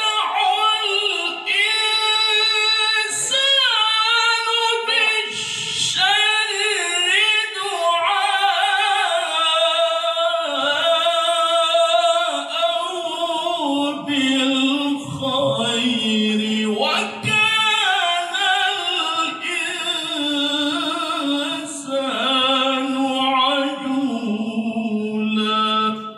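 A man's solo Quran recitation in melodic tilawah style, sung into a microphone through the hall's sound system. Long, ornamented, wavering phrases start high and settle lower in the second half.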